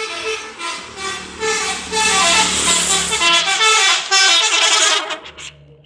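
Intercity bus's telolet horn, a multi-tone musical air horn, playing a quick tune of stepping pitches over the bus engine's low running. It gets louder partway through and stops shortly before the end.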